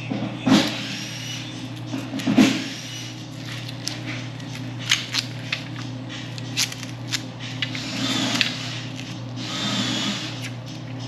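Tools and hardware being handled: scattered clicks and knocks, two of them loud near the start, and rustling stretches later, over a steady low hum.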